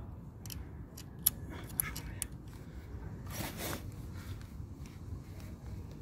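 Small hand-tool handling sounds: a hex key clicking and tapping against a small clamp bolt of a handlebar phone-holder mount, a handful of sharp clicks over the first two seconds or so, then a short rustle a little past halfway.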